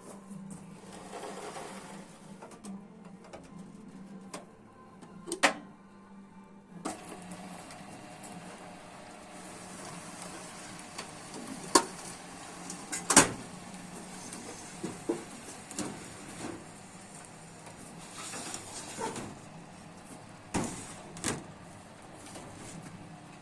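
Sheet-metal edge-rolling machine at work: a steady low hum under sharp, irregular clanks and rattles, the loudest about thirteen seconds in.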